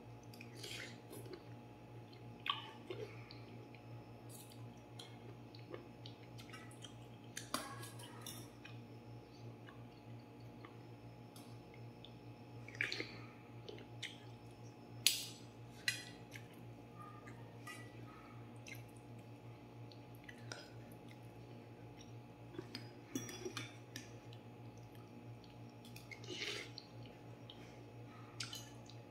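Metal fork and spoon clicking and scraping now and then against a stainless steel bowl of noodle soup, with soft chewing, over a steady low hum. The sharpest click comes about halfway through.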